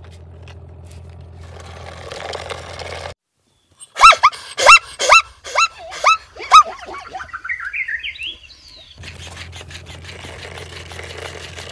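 Zebra calling: a quick run of loud, high yelping barks, then a string of shorter notes climbing in pitch.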